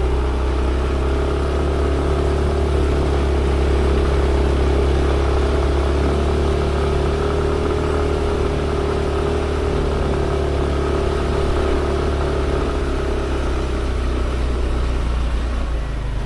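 Motorbike engine running at a steady speed while riding, with a strong, constant low rumble and a level engine tone that holds throughout.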